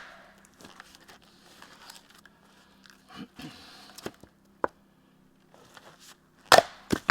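Firewood being split with an axe: faint scraping, crunching and small knocks as the knotty wood is handled, then a sharp axe strike near the end, quickly followed by a smaller knock.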